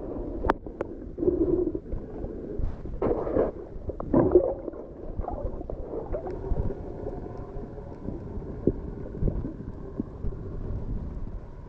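Muffled water sounds from a camera in a waterproof housing: irregular gurgling and sloshing with scattered knocks, heard dull and cut off in the highs.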